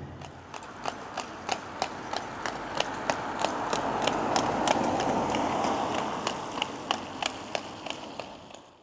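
Hooves of a horse pulling a carriage clip-clopping on the road: regular, sharp hoofbeats about three a second. Under them is a broad rumble that swells as the carriage passes, loudest about halfway through, then fades away near the end.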